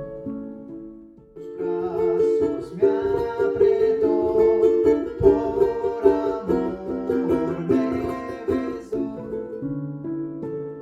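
Music played on a plucked string instrument: a few single notes, then from about a second and a half in a louder, fuller passage of many notes together, thinning back to single notes near the end.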